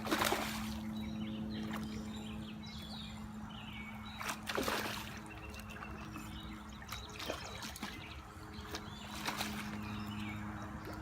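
River water trickling and sloshing, with three brief splashes: near the start, about four and a half seconds in, and about nine seconds in.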